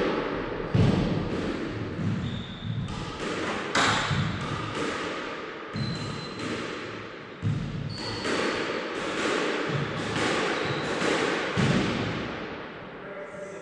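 Squash ball struck repeatedly in a backhand drill, racket hits and front-wall impacts about once a second, ringing in the enclosed court.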